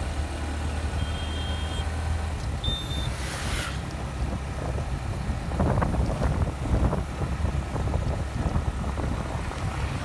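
Motorcycle engine running steadily at road speed with wind noise buffeting the microphone, gusting louder about halfway through. Two brief high beeps sound in the first three seconds.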